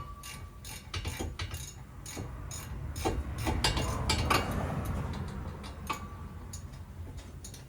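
Hand tools clicking and clinking on metal during rear brake work: a run of irregular sharp metallic clicks, with a rougher scraping stretch about halfway through.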